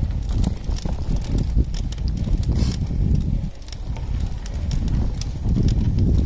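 Road bicycle tyres rolling and crunching over a gravel road on a climb, with scattered small clicks of grit, under a low uneven rumble of wind on the microphone.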